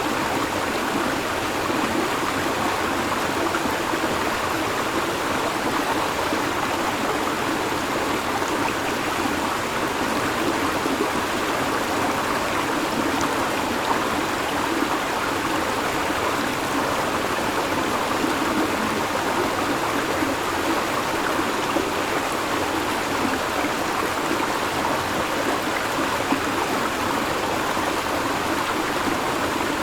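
River water flowing over stones: a steady, unbroken rushing and babbling.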